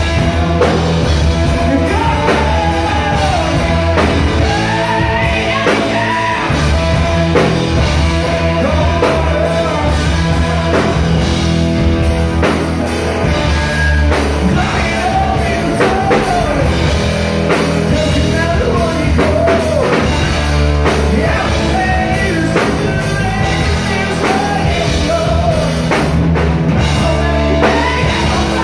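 Live rock band playing: a male singer's lead vocal over electric guitar, bass guitar and drum kit.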